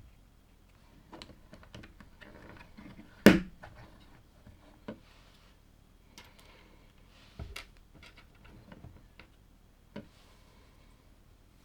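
Plastic LEGO bricks handled and clicked together, with light rustling between a few sharp clicks; one loud click or clack of plastic about three seconds in.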